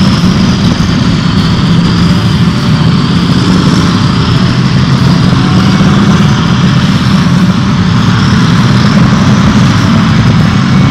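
K2 main battle tanks driving past in a column: a loud, steady rumble of engines and tracks, with a high whine that wavers above it.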